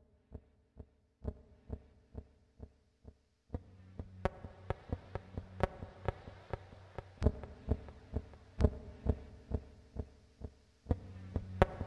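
Quiet intro of background music: a steady beat about twice a second over held tones, with a deeper layer joining about three and a half seconds in.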